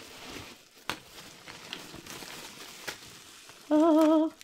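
Bubble wrap and polystyrene packing peanuts rustling and crinkling as hands dig through a parcel box and lift out a bubble-wrapped bundle, with a few sharp clicks. Near the end comes a short, loud pitched sound with a wavering pitch, lasting about half a second.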